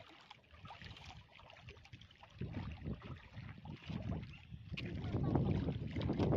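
Wind buffeting the microphone: an uneven low rumble that grows stronger from about two and a half seconds in, over small waves lapping against a rocky bank.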